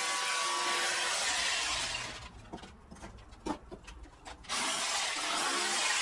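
Electric demolition hammer running against concrete and rubble. It stops for about two seconds midway, with a few knocks, then starts again.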